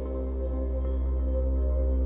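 Background ambient music: sustained tones over a deep low drone that grows gradually louder.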